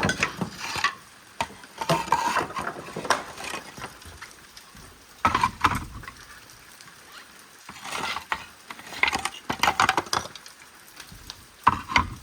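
Clay roof tiles clinking and clattering against each other as they are handled and stacked, in short irregular bursts about every two to three seconds.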